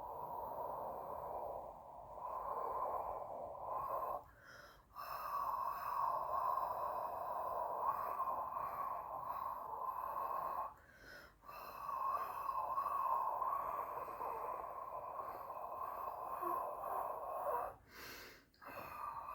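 A person breathing slowly and deeply: long noisy exhalations of about six seconds each, broken by short sharp inhalations about four, eleven and eighteen seconds in.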